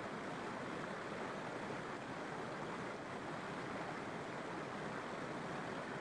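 Waterfall and stream water rushing steadily, an even hiss with no change in level.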